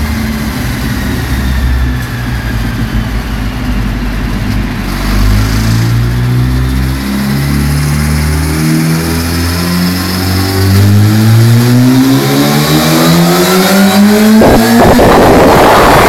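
2008 Yamaha R1's inline-four engine with an Akrapovic exhaust in a full-throttle dyno pull on the roller. The engine note climbs steadily over about ten seconds and gets louder and rougher in the last two seconds.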